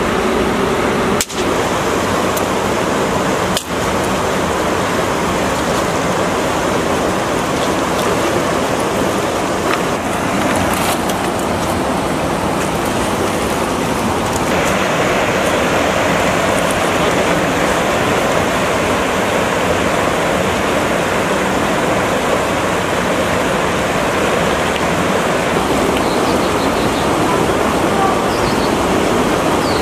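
Steady rush of river water flowing over rocks, dropping out for an instant twice in the first few seconds.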